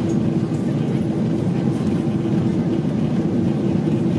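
Steady cabin noise of a Boeing 777-300 in flight: engine and airflow noise with a faint steady hum.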